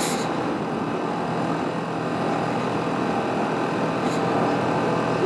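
Motorcycle engine running at a steady pace while riding, mixed with steady wind rush on the microphone.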